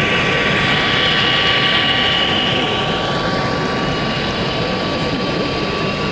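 Steady background din of a busy exhibition hall, with a constant high-pitched whine running through it.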